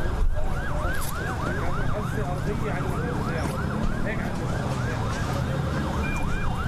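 Emergency vehicle siren on a fast yelp, rising and falling about three times a second, over a steady low rumble.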